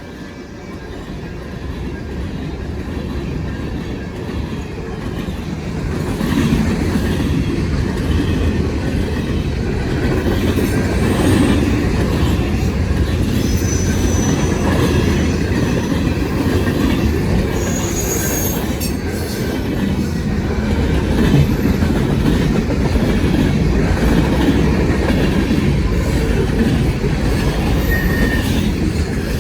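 Fast freight train passing close by: rumble and clatter of wheels over the rails, building over the first six seconds and then holding steady, with a few brief high wheel squeals near the middle.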